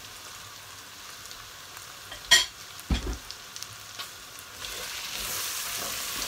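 Onions, garlic and vegetables sizzling in hot oil in an aluminium pot as curry powder is fried in ("burned") to release its flavour. A sharp knock about two seconds in and a duller one just after; the sizzle grows louder near the end as the mix is stirred.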